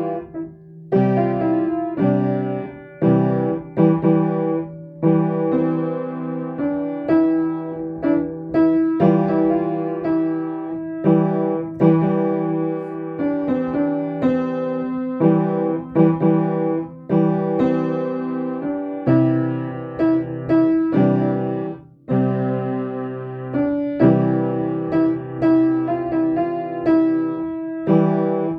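Solo piano playing a calm, gentle piece: notes and chords struck at a slow, even pulse of about one a second, with a brief break in the sound about two-thirds of the way through.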